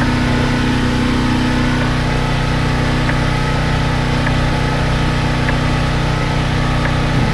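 An engine running steadily at idle, with faint light ticks about once a second.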